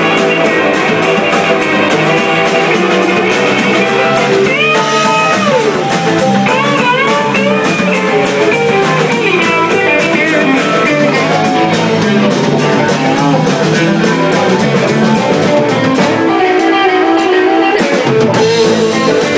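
Live band playing an instrumental passage: electric guitars, bass and a drum kit, with cymbals keeping a steady beat of about four strokes a second. A lead guitar line bends notes up and down about five seconds in.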